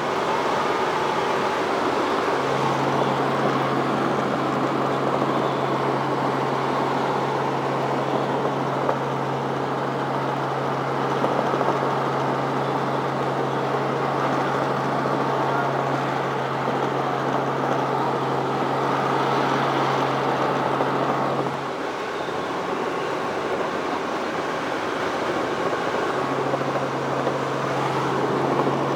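Steady noise of a helicopter in flight, heard from inside the cabin. A low, even hum under it stops abruptly about 22 seconds in and comes back about four seconds later.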